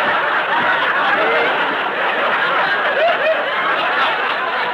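Studio audience laughing over a sound effect of many feet marching in step.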